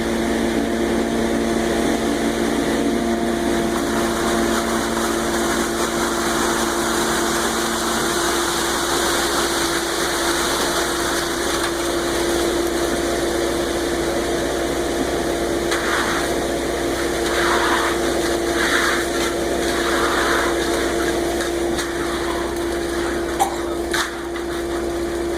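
Concrete mixer truck running steadily at a constant pitch while wet concrete rushes down its chute. A few short, louder rushes come about two-thirds of the way through.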